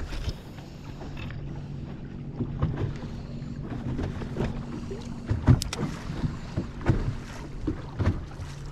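Bass boat on open water: wind on the microphone and water slapping the hull, over a steady low hum, with several sharp knocks in the second half.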